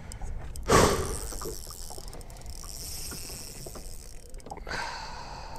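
Handling noises in a fishing boat as a freshly landed pike is dealt with: scattered light clicks and rattles of gear, with one loud, short burst of noise about a second in.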